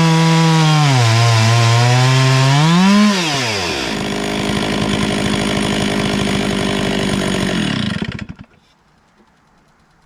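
Stihl chainsaw on an Alaskan chainsaw mill running at full throttle in an oak log, its pitch dipping and rising under load. About three seconds in the throttle is released and the pitch drops to a lower, slower running. The engine stops about eight seconds in.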